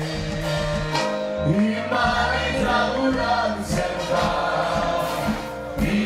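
Gospel choir singing over sustained instrumental backing, a lively praise song with several voices together.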